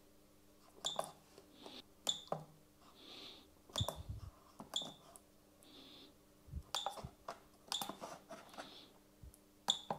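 Slow, single key presses on a small membrane keyboard, faint soft clicks roughly once a second, some with a brief high ring.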